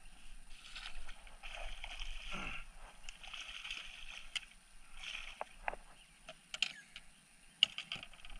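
Fishing gear being handled in a kayak: several short patches of scraping or rustling noise, then a few sharp clicks and knocks near the end.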